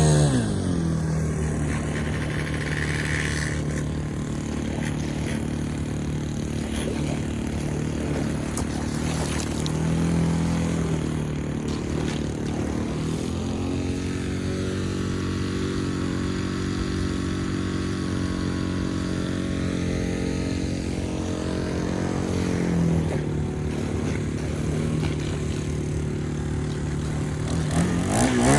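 Engine of a homemade propane-powered RC boat running steadily under way. Its pitch falls sharply just after the start and swoops up and down again near the end.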